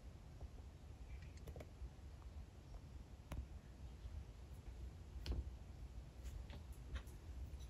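Faint room tone broken by about half a dozen light, separate clicks and taps, spaced a second or more apart.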